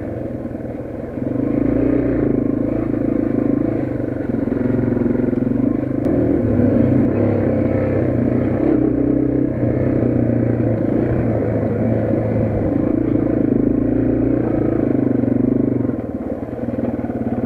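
Yamaha TW200's single-cylinder four-stroke engine running under way on a dirt trail, its pitch rising and falling as the throttle is opened and closed.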